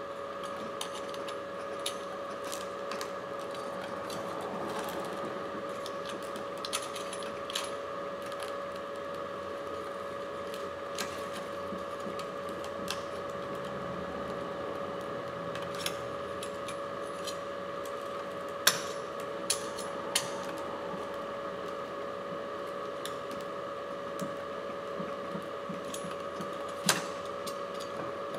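Small tools and parts clicking and clattering in a plastic tray as they are picked through: scattered sharp clicks, with three louder ones about two-thirds of the way in and another near the end, over a steady background hum.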